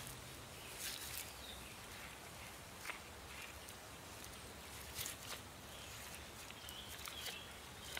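An old plastic credit card scraping scalded slime off a freshwater eel's skin in a few short, separate strokes; the hot-water dip has loosened the slime so it comes away.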